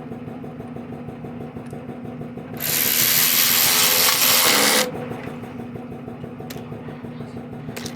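A power tool runs in one steady burst of about two seconds, starting about two and a half seconds in, over a low steady hum.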